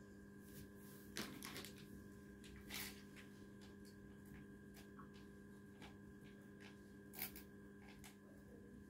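Faint scratching of a ballpoint pen shading on paper, in short strokes, the loudest about a second in, near three seconds and just after seven seconds, over a steady faint electrical hum.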